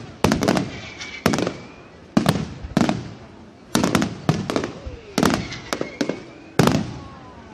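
Aerial firework shells bursting in a high fireworks display: a string of sharp bangs, some in quick pairs, each trailing off over about half a second, with thin whistling tones between them.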